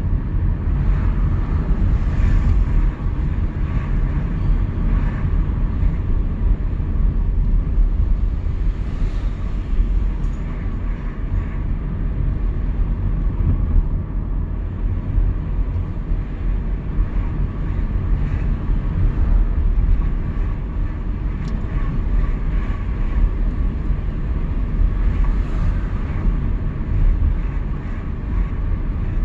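A car's engine and tyre noise while driving, heard as a steady low rumble.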